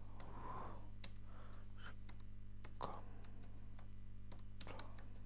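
Computer keyboard typing: uneven, unhurried keystroke clicks over a steady low electrical hum.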